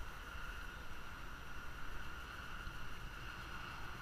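Steady rush of flowing river water, with a low rumble of wind on the microphone.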